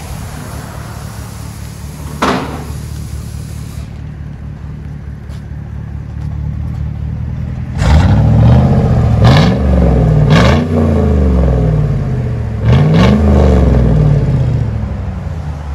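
GMC Yukon's 5.3-litre V8 through an aftermarket exhaust, heard at the tailpipe: idling steadily, then blipped in several quick revs from about eight seconds in, each rising and falling, before settling back toward idle near the end.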